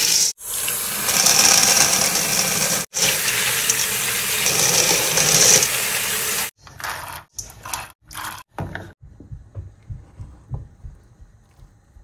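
Dried chickpeas rattling into a stainless-steel bowl in a sink, and tap water running into the bowl as they are rinsed by hand. The steady rush stops about six and a half seconds in, followed by a few short splashes.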